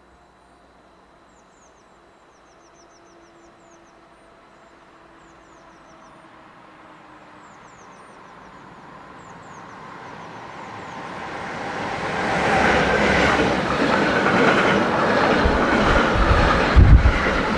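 A freight train of double-deck car-carrier wagons, hauled by an electric locomotive, approaches from far off and passes close by, growing from faint to loud over about twelve seconds. Near the end the wagons' wheels rumble and clatter heavily with low thumps.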